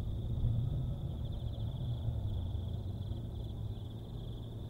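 Insects trilling steadily at a high pitch over a low, steady rumble.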